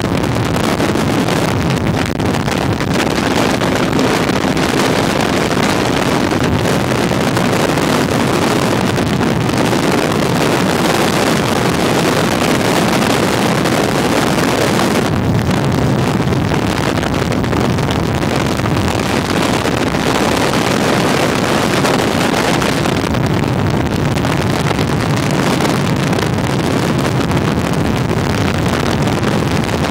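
Motorcycle ridden at highway speed: loud, steady wind rush on the microphone over the engine's running drone.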